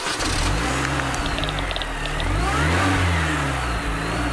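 A car engine revving, its pitch climbing to a peak about halfway through and then easing back down.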